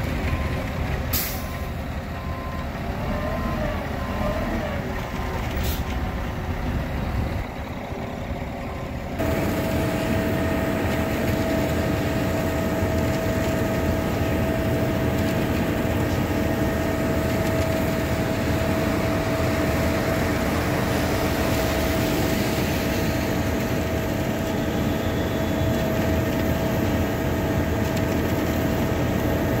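Concrete mixer truck backing up: a heavy diesel engine running, with an intermittent reversing beeper and two short air-brake hisses. About nine seconds in, the sound changes abruptly to a louder, steady run of heavy diesel engines, a mixer truck and a wheel loader, with a constant whine.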